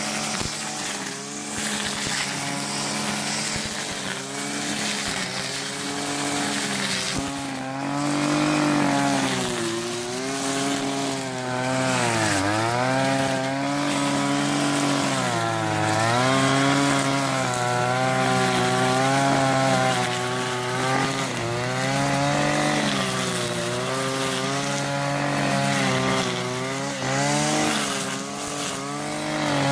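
Kawasaki TJ 35 E two-stroke brushcutter running at high speed while cutting through tall grass and weeds. Its pitch dips and recovers over and over as the cutting head bites into thick growth, with one deep dip about twelve seconds in.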